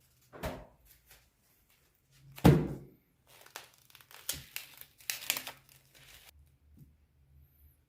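Close-up crinkling and tearing noises with soft thumps, the loudest about two and a half seconds in, a run of crackling from about three to six seconds, then they stop.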